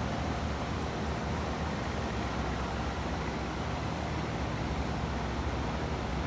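Steady rushing of river water flowing from a dam, an even noise that holds the same level throughout.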